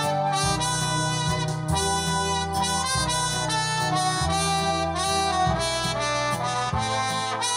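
Arranger keyboard playing a melody in a wind-instrument voice, like a harmonica, over a low bass line and accompaniment. The bass changes note about once a second.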